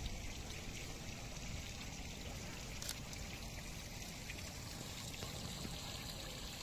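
Steady trickle of running water from a park pond, with a low rumble beneath it, picked up by a phone's microphone.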